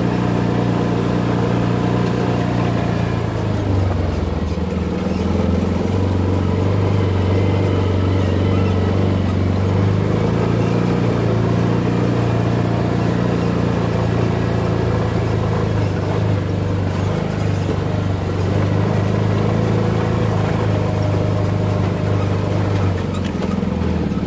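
A side-by-side UTV's engine running steadily while the vehicle drives along a dirt trail. The engine note drops about four seconds in, then shifts again near the end.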